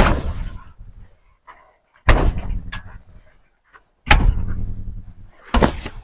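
Four loud thumps about two seconds apart, each fading over about a second, as black landscape fabric is yanked free from the base of a sheet-metal chicken coop.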